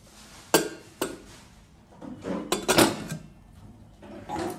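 Metal clinks and clanks of a Pigeon stainless steel pressure cooker's lid being fitted and closed. There are two sharp clinks about half a second and a second in, and a louder cluster of clanks in the middle.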